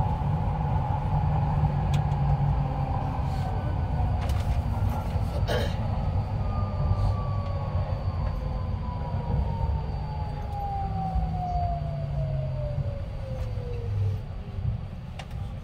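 Incheon Line 2 light-metro train running in a tunnel and slowing into a station: a steady low rumble with a motor whine that falls slowly in pitch as it brakes, and a single knock about five seconds in.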